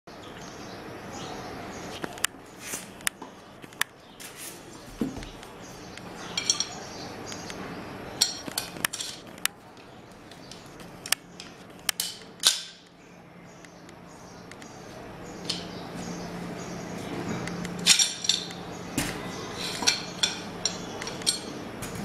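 Old handcrafted iron trick padlock being handled, with irregular sharp metal clicks and clinks, loudest about twelve and eighteen seconds in.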